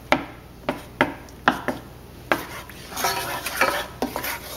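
Wooden spoon stirring butter and garlic in a metal skillet, knocking against the pan about six times in the first two and a half seconds, then scraping more softly and continuously.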